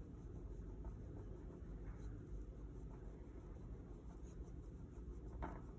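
Paintbrush stroking paint onto a stretched canvas: faint, soft scratchy brushing over a steady low background hum, with one slightly louder stroke near the end.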